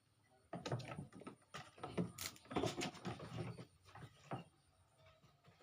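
A quick irregular series of knocks, taps and rustles, several a second, which dies away near the end.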